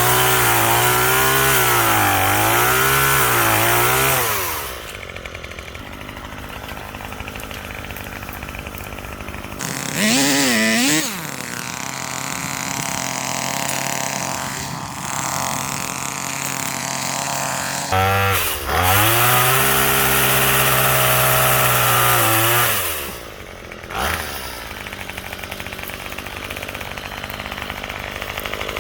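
Chainsaw running, its engine revving up and dropping back as it cuts. It is loud for the first four seconds or so, then drops to a lower steady run, with a short rev about ten seconds in. It is loud again from about eighteen to twenty-three seconds, with one more brief rev just after.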